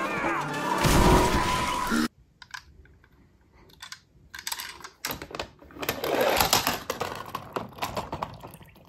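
An animated-film soundtrack with music and sliding tones cuts off abruptly about two seconds in. Small plastic clicks and rattles follow as a toy fire truck is picked up and handled over a plastic toy playset, busiest in the second half.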